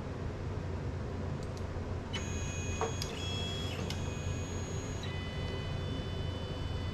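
Stepper motors of a CNC plasma table whining as the gantry moves through its program, the high whine starting about two seconds in and jumping to new pitches several times as the moves change speed, over a steady low hum.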